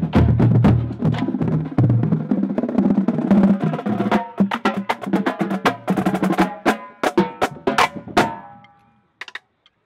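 Marching drumline of snare drums, quad tenor drums and bass drums playing a cadence. Dense playing with deep bass-drum hits gives way about halfway through to sharper, separated accented strokes, and the cadence stops about eight seconds in, leaving a few faint taps.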